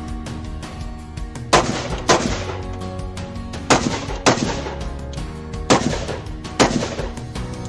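Six gunshots fired in three quick pairs, the shots in each pair under a second apart, over background music.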